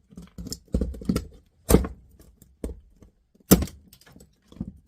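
Repeated heavy blows smashing a small DC motor off a cassette deck mechanism to break it free: about five sharp strikes, the loudest about three and a half seconds in.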